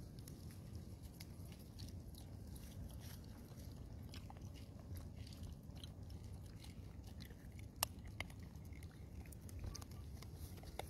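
Macaque biting and chewing dragon fruit close to the microphone: faint wet clicks and smacks, with a sharper click about eight seconds in.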